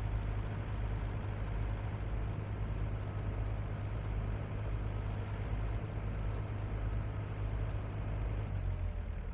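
Diesel engine of a 2012 John Deere 135D excavator running steadily with a low, even hum; the sound thins slightly near the end.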